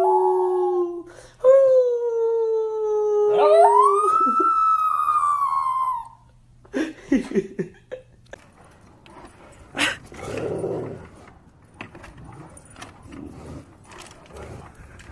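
Small long-haired dog howling: three drawn-out howls over the first six seconds, the last rising high and then sliding slowly down in pitch. After that, quieter irregular noises with a sharp click about ten seconds in.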